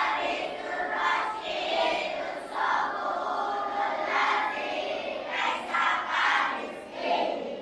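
A group of schoolchildren chanting loudly together in unison, in phrases of about a second each.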